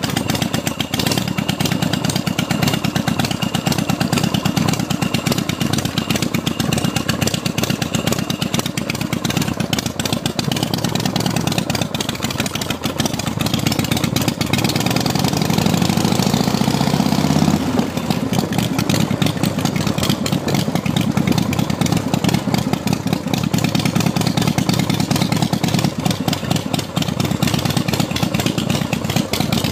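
Custom chopper motorcycle's engine running steadily while riding. About halfway through, the engine note rises for a few seconds, then drops suddenly.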